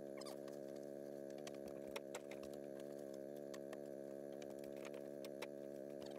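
Faint steady hum with a fixed pitch and overtones, with scattered faint clicks and knocks over it.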